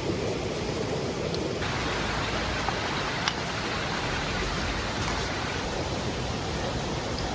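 Steady rush of a river flowing, an even wash of water noise that brightens about one and a half seconds in, with a faint click about three seconds in.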